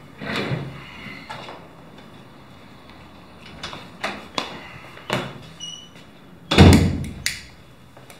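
A cigarette pack being handled and a lighter being struck at a desk: a string of short clicks and taps, with one loud knock about six and a half seconds in.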